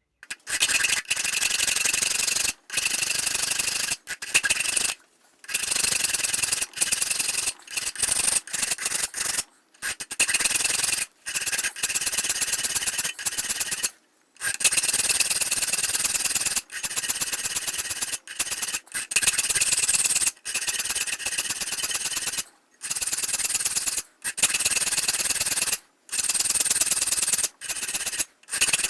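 Steel file scraping along the spine of a steel cleaver made from a mower blade, in long strokes of a second or two with short breaks between them, and a faint ring from the metal.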